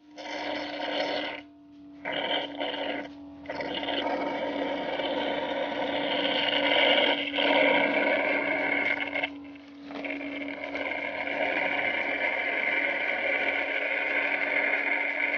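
Electric suction machine drawing stingless-bee honey from the hive's honey pots: a steady motor hum under a loud slurping rush of air and honey through the tube, which starts abruptly and breaks off briefly a few times as the nozzle is moved.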